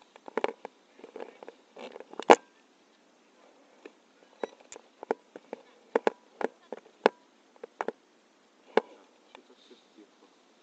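Irregular sharp clicks and knocks with some rustling, the loudest about two seconds in: handling noise from the pilot moving about with paragliding gear.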